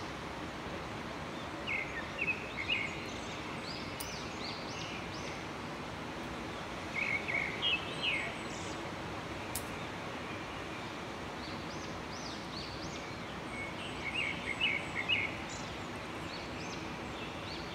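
Outdoor background with a steady hiss, over which a bird calls in three short bursts of quick high chirps, about two seconds in, around seven to eight seconds, and around fourteen to fifteen seconds.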